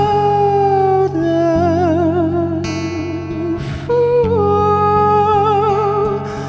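A singer holds long wordless vowel notes with vibrato over sustained acoustic guitar, changing note a few times. There is a brief hiss about three and a half seconds in.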